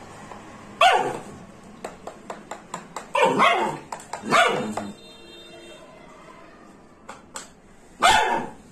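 Small dog barking four times in short, sharp barks, with a quick run of light clicks between the first and second barks.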